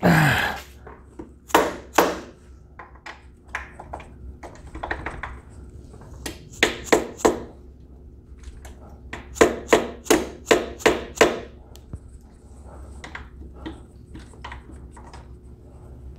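Irregular knocks and taps of hand tools on metal suspension parts as an ATV A-arm is worked into its frame mounts, including a run of about four strikes around the middle and a run of about six a couple of seconds later.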